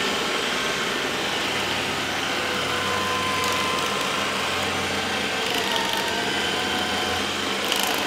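Roborock S6 robot vacuum running steadily on a hardwood floor, a constant whir from its suction fan and brushes as it maps the room.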